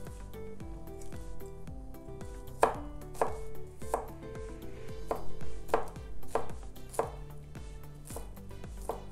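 Chef's knife rough-chopping garlic cloves on a plastic cutting board: sharp knocks of the blade on the board, about two a second, starting about two and a half seconds in. Soft background music runs underneath.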